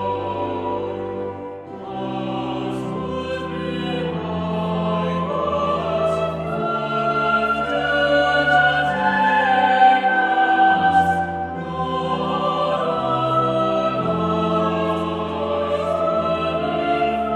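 Choral church music: a choir singing over held chords with a low bass line that moves in steps.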